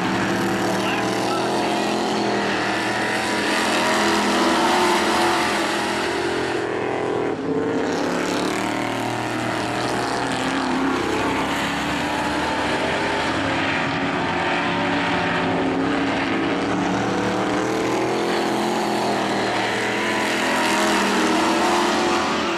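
Dirt-track race cars' V8 engines running at speed around the oval, several engines sounding at once, louder as cars pass about four seconds in and again near the end.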